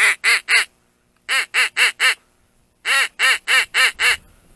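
Loud duck quacks in runs of evenly spaced calls, about four a second: three, then four after a short pause, then a longer run of six.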